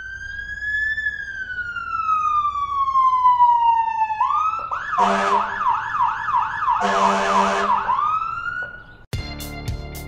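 Electronic emergency-vehicle siren: a wail that rises briefly and then falls slowly in pitch, switching about four seconds in to a fast yelp of several sweeps a second, cut by two short loud horn blasts. Near the end the siren stops and guitar music begins.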